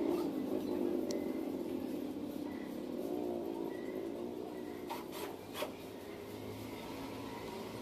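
Cordless drill/driver running while driving screws to fit a cabinet door hinge; the motor hum shifts in pitch as it works. A few sharp clicks come about five seconds in.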